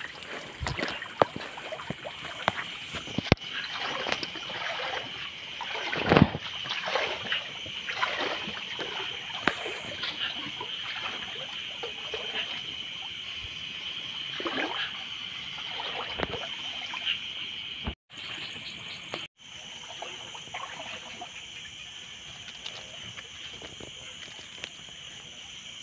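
Shallow river water splashing and trickling as someone wades and works through it. The splashes are frequent in the first two-thirds and thin out after that. Underneath runs a steady high-pitched night chorus.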